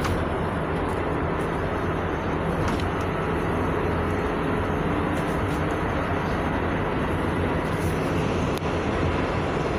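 Cabin noise inside a 2017 GAZelle Next A64R45 minibus on the move: a steady low drone of the engine and road noise, with a few faint clicks of rattling fittings.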